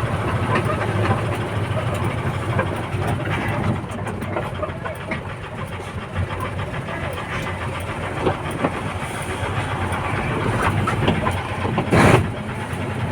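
Backhoe's diesel engine running steadily, with clanking and rattling from the machine, and a short loud rush of noise near the end.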